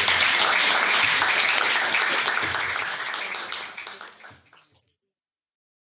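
Audience applauding, the clapping thinning and fading out about four and a half seconds in.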